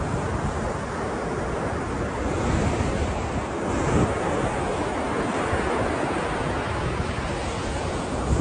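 Ocean surf washing continuously, with a swell of louder wave wash about two to four seconds in.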